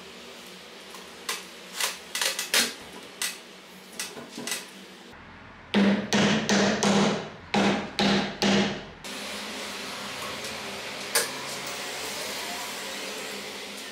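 A hammer striking a hunting knife set into the end of a wooden spear shaft. There is a run of light clicks and taps, then about six seconds in, some seven sharp, ringing blows over about three seconds.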